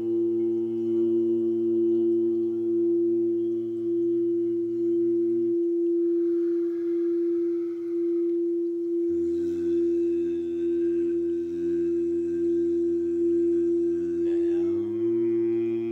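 Layered sung drones of a sound-healing chant on 'Om' and 'LAM', held over one steady high tone. The lower voices drop out about five seconds in, come back about nine seconds in on different notes, and slide upward near the end to settle again.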